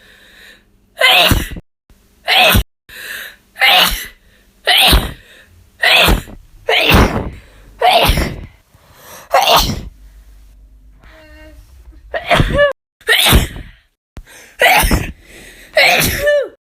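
A woman sneezing again and again, about a dozen loud sneezes a little over a second apart, some with a falling voiced "choo" at the end. Several stop abruptly where one clip is cut to the next, and a quieter stretch with a short pitched breath comes about two-thirds of the way in.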